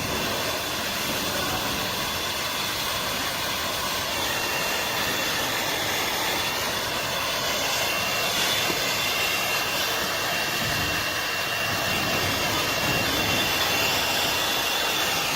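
Oxyhydrogen (HHO) torch flame hissing steadily, with a thin high whine.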